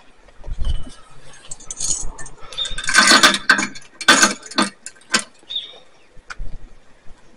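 ATX Power Prowler sled rattling and clanking as it is moved, metal jingling in irregular clatters that are loudest about three and four seconds in, with a couple of dull thuds.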